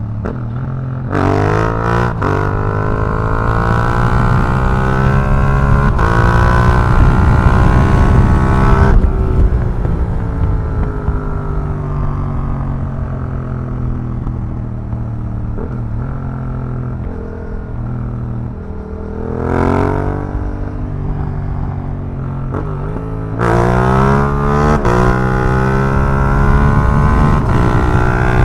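2021 Yamaha MT-07's 689 cc parallel-twin engine through an Akrapovic racing exhaust, accelerating hard with quick upshifts, then falling slowly in pitch as the bike slows. There is a short rev about two-thirds of the way in, and the engine climbs hard through the gears again near the end.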